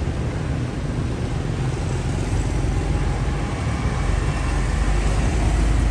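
Street traffic with an open-top double-decker bus passing close among motorbikes. The bus's low engine rumble grows steadily louder as it nears.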